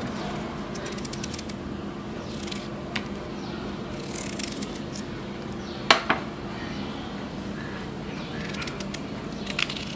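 A small kitchen knife shaving the skin off a chow chow (chayote) in short strokes: light scrapes and clicks, with two sharper clicks about six seconds in. A steady low hum runs underneath.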